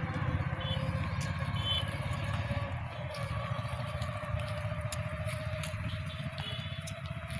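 An engine running steadily, with a pulsing low rumble and a faint pitch that rises slowly, along with a few short high chirps.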